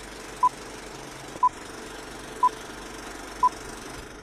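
Film-leader countdown beeps: four short, high, identical beeps, one each second, over a steady background hiss.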